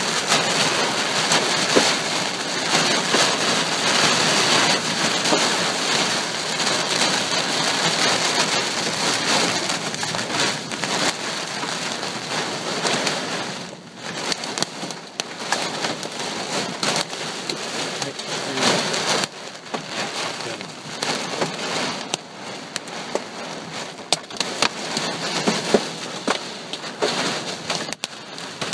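Heavy thunderstorm downpour pounding on surfaces, dense and steady at first, easing somewhat about halfway through, with sharp scattered taps of impacts.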